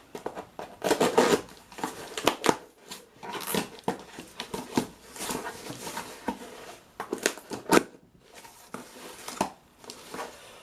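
A cardboard shipping box and its packaging being opened by hand: irregular rustling, crinkling and scraping, with short sharp taps scattered through.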